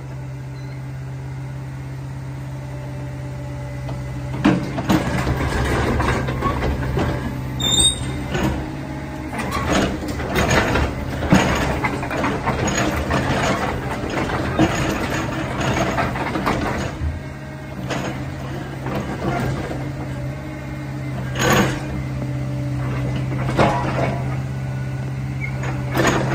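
Caterpillar 305.5E2 mini excavator's diesel engine running steadily while the hydraulics work the boom, bucket and blade. Repeated clanks and knocks come as the machine props itself up on its bucket and blade, tilts on its tracks and sets back down.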